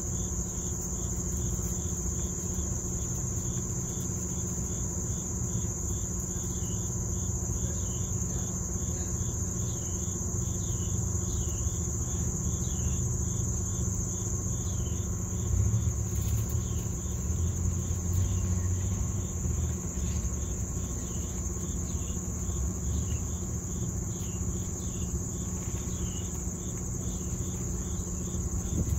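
Insects droning steadily at a high pitch, with short chirps repeating all the way through, over a low steady rumble that swells briefly about halfway in.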